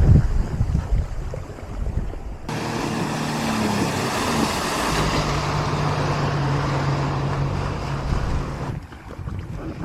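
Wind buffeting the microphone, then from about two and a half seconds in a jet ski's engine running steadily with the hiss of water spray. The engine hum falls away near the end.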